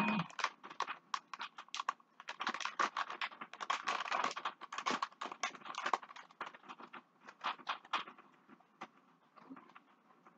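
Plastic bag of shredded mozzarella being handled and opened: a dense run of crinkles and crackles of the plastic, thinning out in the last few seconds.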